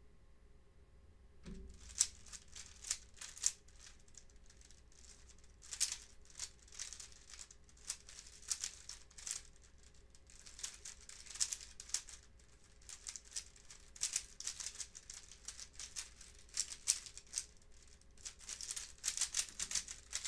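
A 3x3 Rubik's cube being solved at speed: rapid plastic clicking and clacking as the layers are turned. It starts about a second and a half in and comes in quick flurries with brief pauses.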